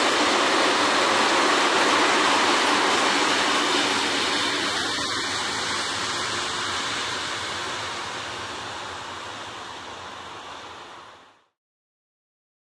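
Freight train rolling past on the rails, a steady rushing noise that fades away from a few seconds in and stops about eleven seconds in.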